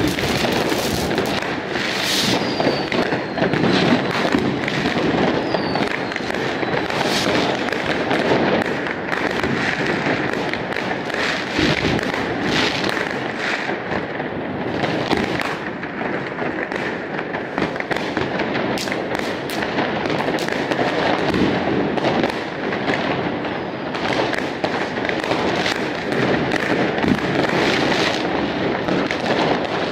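Many fireworks going off at once: a continuous din of bangs and crackling from rockets, shells and fountains, with a thin whistle falling in pitch about two and five seconds in.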